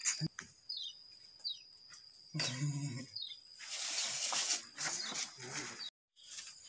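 Outdoor ambience: a steady high insect drone with a few short falling chirps over it, a brief low voice-like sound about two and a half seconds in, and a stretch of rustling hiss in the middle.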